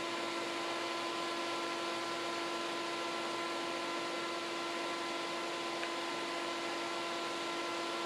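Small electric fan blowing air through the aluminium fins of a transmission cooler, with a small 12-volt water pump circulating ice water through the tubing: a steady whir of air with a constant low hum.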